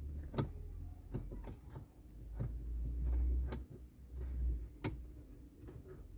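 Irregular light clicks and taps of mounting screws being fitted and turned with a screwdriver as a car stereo is fixed into the dashboard, over a low uneven rumble.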